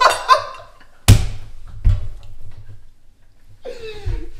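A sharp thump about a second in, the loudest sound here, with a short ringing tail and a softer knock just after, between brief wordless voice sounds at the start and near the end.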